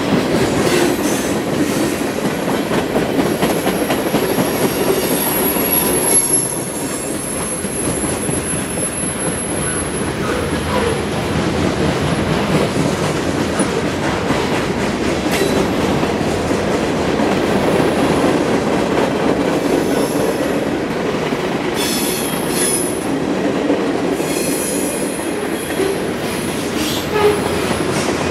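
Norfolk Southern freight train's boxcars, tank cars and covered hoppers rolling past on the rails: a steady rumble with wheel clatter. A thin, high wheel squeal runs from about four to ten seconds in, with shorter squeals around twenty-two and twenty-five seconds in.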